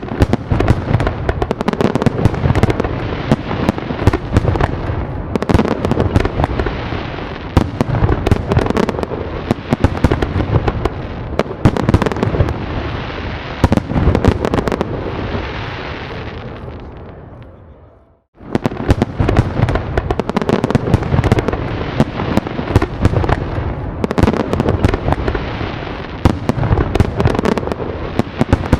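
Fireworks display: a dense run of overlapping bangs and crackles. About two-thirds of the way through it fades out to a brief silence, then starts again abruptly at full strength.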